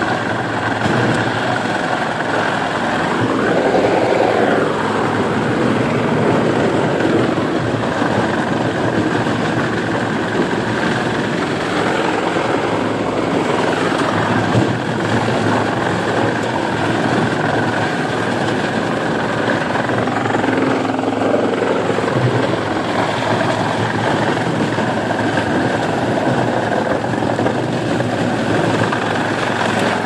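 Yulong TR-A80130 drum wood chipper running steadily under load, its drum and chain-plate feed conveyor carrying logs and branches in to be chipped. The noise swells a few times as the wood reaches the drum.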